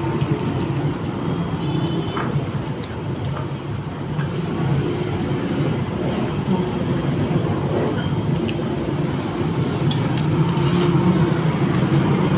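Steady low rumbling background noise, like a running vehicle, with a few faint clicks.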